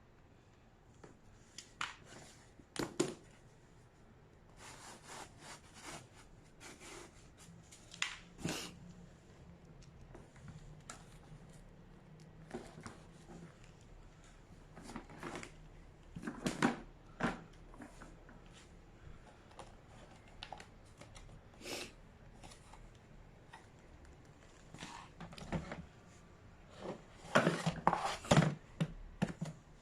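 Vacuum cleaner being handled while switched off: irregular clicks, knocks and short rustles of its parts being opened, taken out and fitted back, with the loudest cluster near the end.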